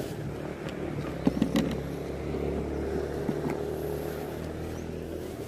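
An engine running steadily, a little louder in the middle, with a few sharp clicks about a second and a half in.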